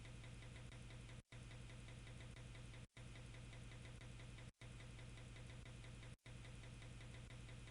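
Near silence: a faint steady hum with a fine, even ticking in it, cutting out briefly about every second and a half.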